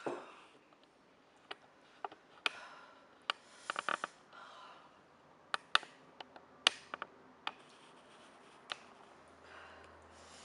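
A person sniffling and breathing hard with a runny nose and a mouth burning from very hot chili, with scattered sharp clicks throughout, the loudest sounds here.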